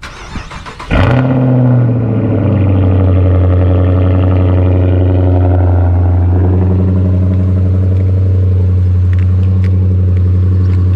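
Dodge Charger cold start: the starter cranks for about a second, the engine catches with a loud flare, then settles within a couple of seconds into a steady cold idle.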